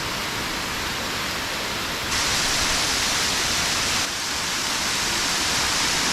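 Steady rush of water falling over a dam, a dense hiss with no breaks. It jumps louder about two seconds in and drops back about two seconds later.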